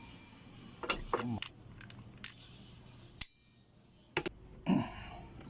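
Metal hand tools clinking and knocking against bicycle parts in a series of separate sharp knocks and clicks, while working at a tight bottom bracket.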